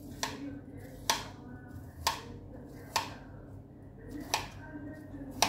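Kitchen knife chopping cucumber on a cutting board: six sharp knocks of the blade hitting the board, about one a second, over a steady low hum.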